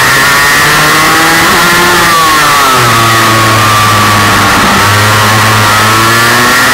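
Kart engine under way at high revs, loud onboard over wind hiss. The revs drop about two seconds in and then build again from about five seconds.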